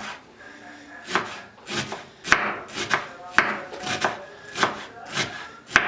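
Knife chopping on a wooden cutting board in slow, even strokes, about nine in all.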